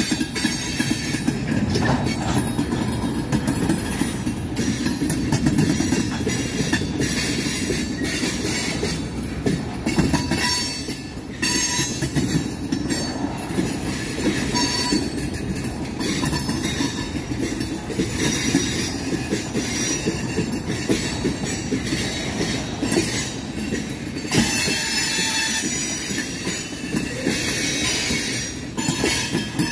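Freight train tank cars rolling past close by: a steady rumble and clatter of steel wheels on the rails, with a high wheel squeal at times.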